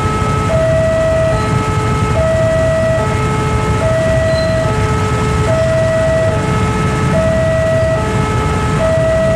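Railway level-crossing alarm sounding its two-tone electronic warning: a higher tone and a lower tone alternate, each lasting just under a second, over a steady low rumble of engines.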